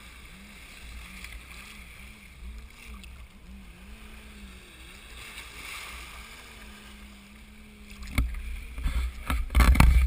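Surf washing around and over a GoPro in its waterproof housing at the water's edge: a low water rumble, then loud splashing and knocks against the housing in the last two seconds. A faint warbling tone runs under it.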